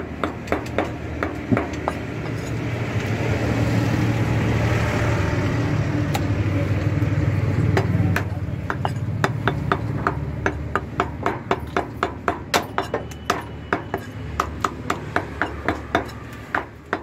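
A cleaver chopping mutton on a wooden block: sharp knocks repeating throughout, faster in the second half. In the middle a passing vehicle's low engine rumble swells and fades over several seconds.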